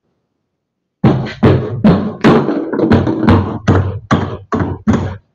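About ten loud, rapid knocks on a galvanized sheet-metal evaporator box, two to three a second, each ringing briefly; they start about a second in.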